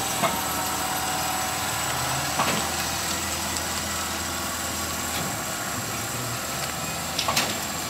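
Vintage trolleybus moving slowly past with a steady running hum, broken by a few sharp clicks: one at the start, one about two and a half seconds in, and a quick cluster near the end.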